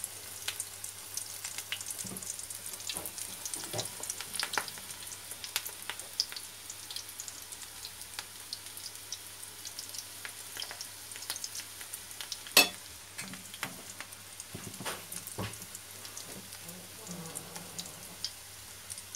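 Spoonfuls of vegetable-and-egg fritter batter (ötçe) frying in hot oil in a pan: a steady sizzle full of small crackling pops, with one sharper click about twelve seconds in.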